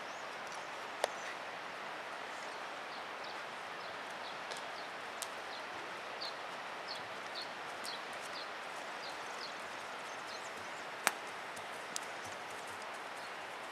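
Steady outdoor background hiss with a run of faint, short, evenly spaced high ticks through the middle, and two sharp clicks, one about a second in and a louder one near the end.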